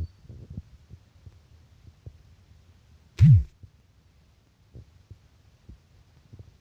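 Scattered soft low thumps, with one loud, sharp thud about three seconds in.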